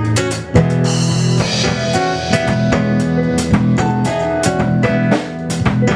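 Band rehearsal playing an instrumental intro: drum kit with kick and rimshot hits over guitar and sustained pitched instruments.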